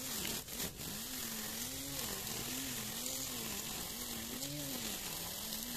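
Laxton cordless battery-powered grass trimmer running, its electric motor whine dipping and recovering in pitch about every half second as the spinning cutting head bites into the grass. An even hiss of cut grass runs over it.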